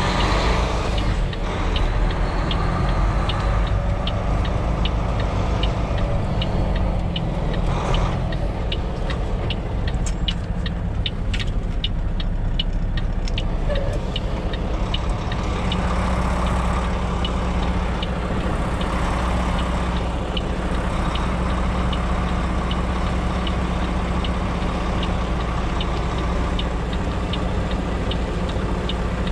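Semi truck's diesel engine running at low speed, heard from inside the cab while the rig is manoeuvred back into a trailer slot, with a steady, evenly spaced ticking throughout.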